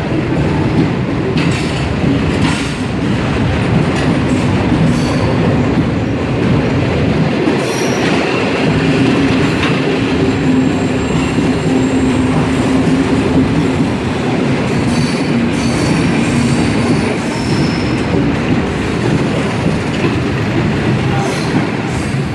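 Long freight train rolling past, a steady loud rumble of wagons on the rails with scattered knocks and a few brief high wheel squeals.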